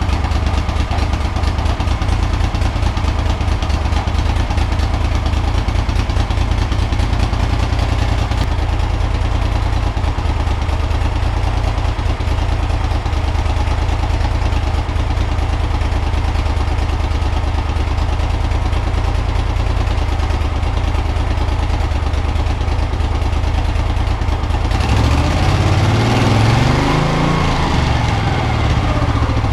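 1975 Moto Guzzi 850T's air-cooled V-twin engine idling steadily on its first run after a full rebuild. About 25 seconds in it is revved once, the pitch rising and then falling back to idle.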